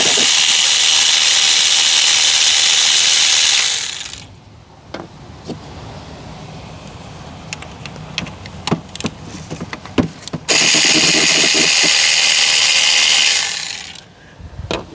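A handheld power tool runs twice, about four seconds each time, spinning out the valve cover bolts, with light clicks of tools and bolts in between.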